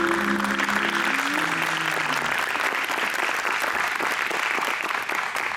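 Audience applauding, with many hands clapping. The last held notes of the routine's music end about two seconds in.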